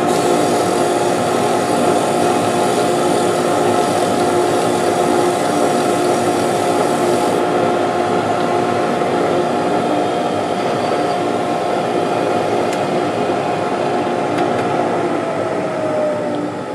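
Mini lathe spinning a drill bit in a Jacobs chuck while a pen blank is faced off against it, with a vacuum attachment running, as a loud steady mechanical run with a steady whine. Near the end a motor's pitch falls as it winds down.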